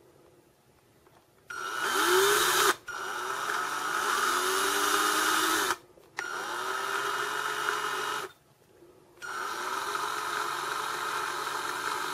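Small power drill running in four short bursts, each spinning up with a rising whine, as a fine bit bores a hole into the side of a small plastic slide switch.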